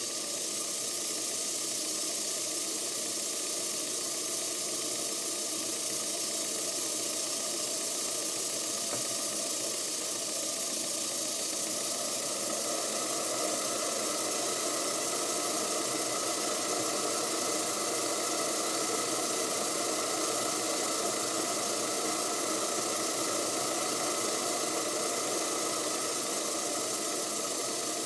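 Stuart Turner twin launch model steam engine, a small vertical two-cylinder engine, running steadily on live steam: a continuous hiss of steam with the engine's mechanical running.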